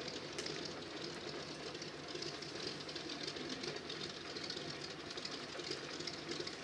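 Pratt & Whitney radial engine of a Zero Model 22 fighter idling steadily on the ground.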